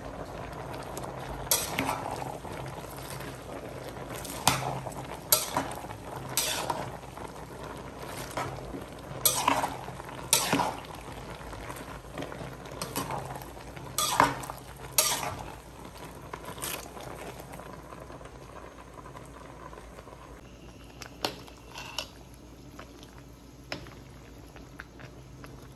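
Cooking utensils clinking and scraping against the side of an aluminium pot while stirring cabbage and macaroni soup, over a steady simmering bed. The knocks come irregularly, about a dozen, thinning out after the first two-thirds.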